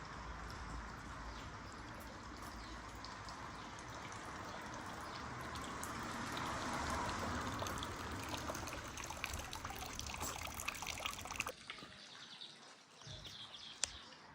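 Summer rain falling with water trickling and pouring, and scattered drops ticking, thicker toward the middle. About eleven and a half seconds in the sound drops suddenly quieter, leaving only a few drop ticks.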